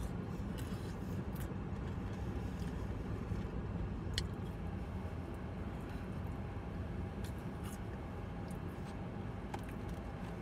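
Steady low rumble inside a car, with a few faint clicks and rustles as French fries are picked up and eaten.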